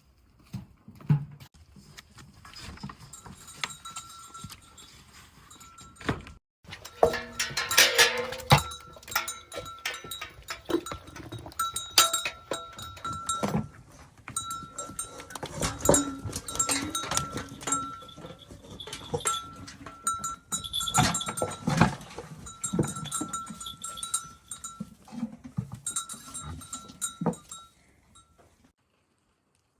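A flock of bleating livestock with a bell clinking among them, its ringing tone coming and going.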